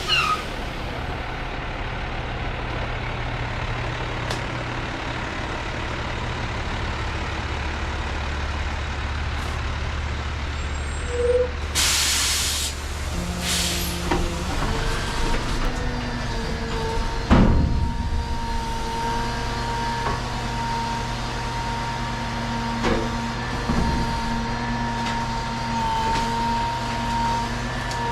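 Heavy truck running, with a short loud hiss of its air brakes about twelve seconds in, then a steady high whine from a little past the middle.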